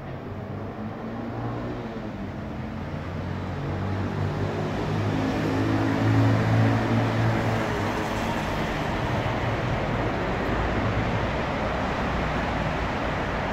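Road traffic on the street beside the entrance: a vehicle engine grows louder to a peak about six seconds in, over a steady roar of passing cars.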